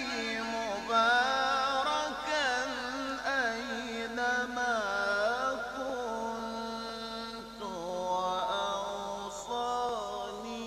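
A man reciting the Quran in a slow, melodic chanting style, holding long ornamented notes whose pitch glides up and down between phrases.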